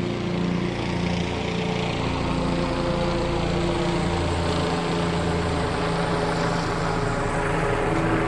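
Helicopter flying past, a steady loud engine-and-rotor drone with a slow, even pulse.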